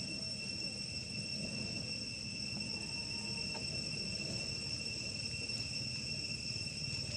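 Insects droning: one steady high-pitched tone that holds unchanged throughout, over a low outdoor rumble.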